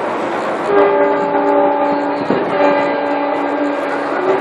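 A horn sounding a steady chord of several pitches for about three and a half seconds, starting under a second in, with a brief dip midway.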